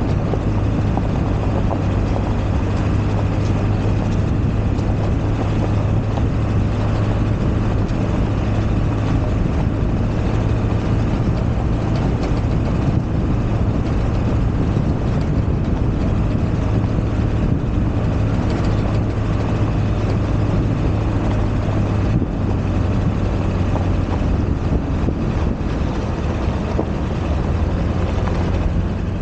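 1999 Ford F-250 pickup driving up a gravel road: a steady low engine drone with tyre noise.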